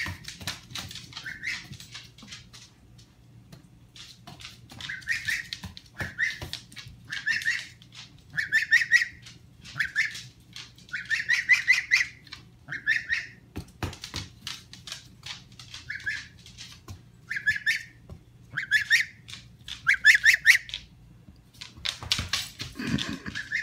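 Embden gosling calling over and over, about a dozen short, hoarse, squeaky calls, each under a second and coming every second or two, with scattered sharp clicks and taps, likely claws scrabbling on a tile floor.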